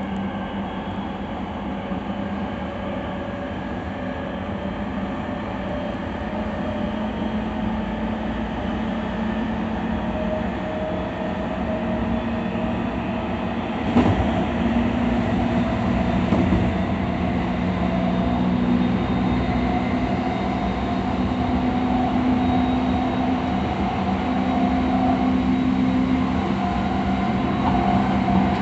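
Running sound inside a JR East E217 series electric train car: steady wheel-and-rail rumble with a traction motor whine that climbs slowly in pitch and gets a little louder as the train gathers speed. A single sharp knock comes about fourteen seconds in.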